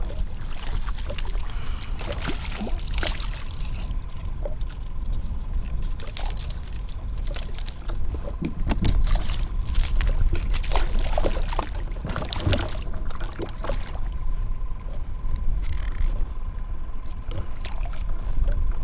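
Water slapping and splashing against a kayak hull over a steady low wind rumble on the microphone, with irregular sharp splashes and knocks as a hooked redfish is brought alongside the kayak, busiest about two seconds in and again from about eight to thirteen seconds in.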